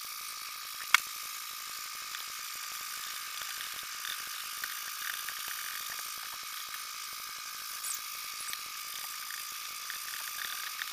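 A spoon stirring flour-and-water batter in a bowl, making many light scrapes and clicks against the bowl over a steady high hiss. There is one sharp click about a second in.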